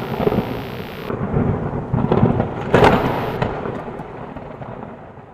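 Thunder sound effect: crackling rumbles, a high hiss that stops about a second in, and a loud crack a little under three seconds in, followed by a long rumble fading away.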